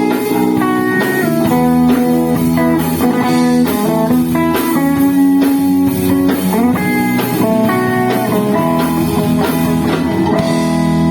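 A band playing an instrumental passage: an electric guitar melody with held notes and a few bends, over drums and bass guitar.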